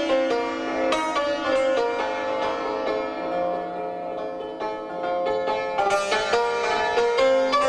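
Persian santur struck with light wooden mallets, playing in the Segah mode: ringing single notes and rapid repeated strokes on one note, a sparser stretch in the middle, then a quick run of strokes about six seconds in.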